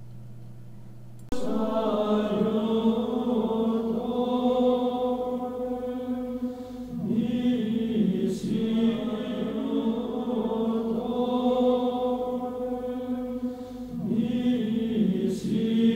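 Music of slow vocal chant with long held notes, coming in about a second in after a low steady hum; new phrases begin about every seven seconds.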